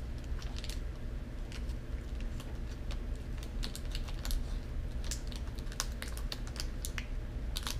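Foil wrapper on a chocolate-covered peanut marzipan candy being peeled open by hand: scattered irregular crackles and clicks, over a low steady hum.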